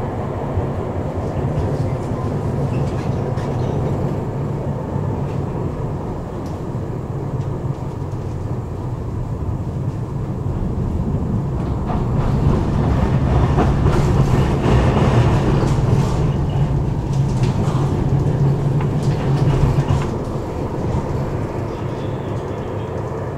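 Tram running along its rails: a steady low rumble that grows louder for several seconds in the middle, with a few short clicks, then eases back.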